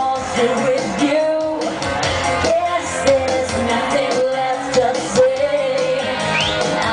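Live pop band performance with a woman singing the melody over a steady beat, recorded from the audience in a large hall.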